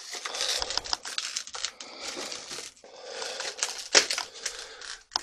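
Footsteps crunching and shuffling over rubble and broken building debris, with scattered sharp cracks and clicks; one louder crack about four seconds in.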